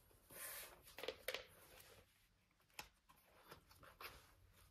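Faint rustling and a few soft ticks of thick boot laces being pulled up and drawn tight through a leather boot's eyelets.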